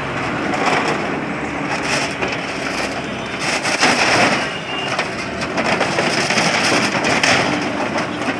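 Wheel loader's bucket crushing a roadside stall of wood and corrugated sheet metal: a run of cracks, splintering and clattering. It is loudest about four seconds in and again in the last couple of seconds.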